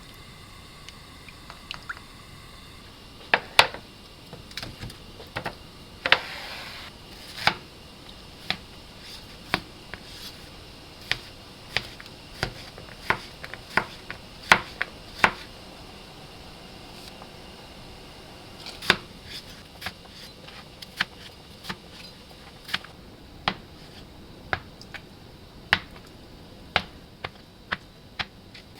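Kitchen handling sounds: a long run of irregular sharp clicks and knocks, like dishes and utensils being set down and handled, with a brief rustle about six seconds in.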